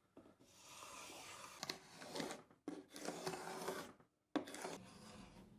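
Hand rubbing or scraping across wood in three long strokes, with a sharp knock as the third stroke starts.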